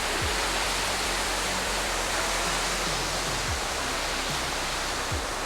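Waterfall rushing: a steady, dense wash of falling water.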